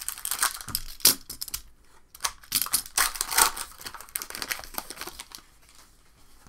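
Trading cards and their packaging handled close to the microphone: bursts of rustling and sharp clicks, dying down about five and a half seconds in.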